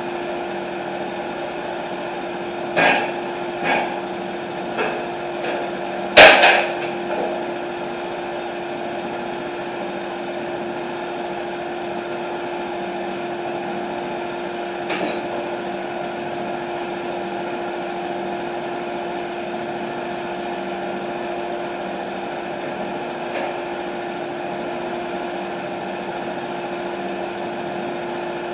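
TimberKing 1220 sawmill engine running at a steady pitch. A series of sharp knocks comes about 3 to 7 seconds in, the loudest about 6 seconds in, and single fainter knocks come about 15 and 23 seconds in.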